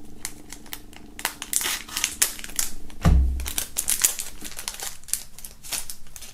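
Clear plastic shrink-wrap crinkling and crackling as it is slit with a pocket knife and peeled off a small packaged item by hand, with a dull thump about three seconds in.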